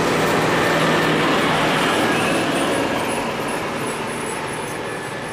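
Road traffic noise as a bus passes close by: a loud, steady rush with a low engine hum underneath, easing slightly over the seconds.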